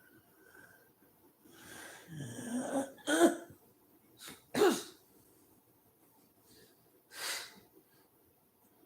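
A sleeping woman's noisy breathing: a rough snore falling in pitch about two seconds in, two short sharp coughs near three and four and a half seconds, the second the loudest, and a breathy exhale near seven seconds.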